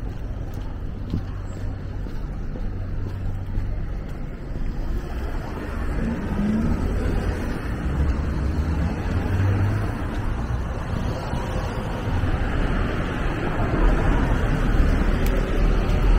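Traffic on a wet city street: engines rumbling and tyres hissing on the wet road, growing louder over the second half as vehicles pass close by.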